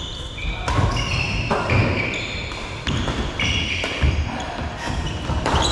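Badminton rally: sharp racket hits on the shuttlecock every second or so, with shoes squeaking in short high chirps on the court floor.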